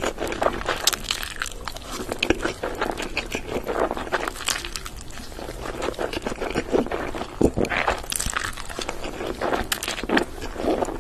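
Close-miked mouth sounds of a person eating saucy noodles: slurping and wet chewing, a dense, irregular run of smacks and small clicks.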